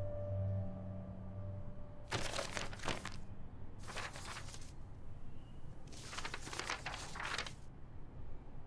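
The last held note of background music fades out, then there are three separate bouts of rustling or crinkling, each about a second long.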